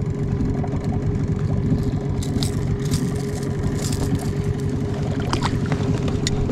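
Boat outboard motor running steadily while trolling, with a few short clicks and knocks around the middle and near the end.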